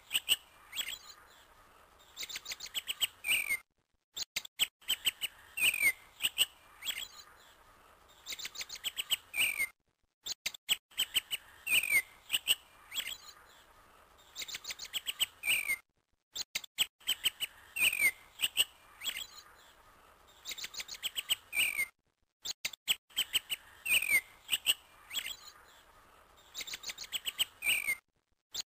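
A looped recording of birds chirping: the same few seconds of quick chirps and short falling whistles repeat about every six seconds, each repeat separated by a brief moment of silence.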